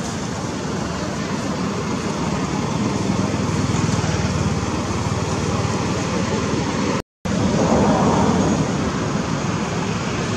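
Steady outdoor background noise with a low hum, like distant road traffic, that cuts out completely for a split second about seven seconds in.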